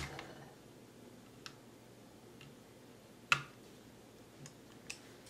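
Handling clicks from a Browning Hi-Power pistol as a wooden grip panel is pressed onto the steel frame and a screwdriver is set to the grip screw: two sharp clicks about three seconds apart, with a few faint ticks between them.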